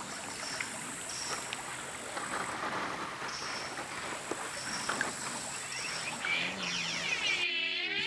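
Shallow stream flowing and babbling over stones and branches. Near the end it cuts into a swirling, sweeping electronic effect.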